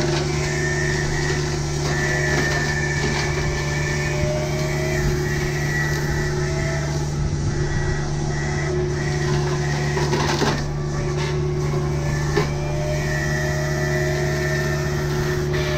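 Kubota U55-4 mini excavator's diesel engine running steadily under load, with a higher whine that wavers in pitch. Two short sharp cracks come about ten and twelve seconds in.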